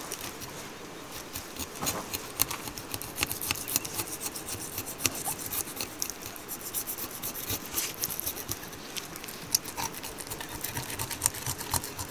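Knife working with quick, irregular scraping and cutting strokes; the blade is dull and needs sharpening.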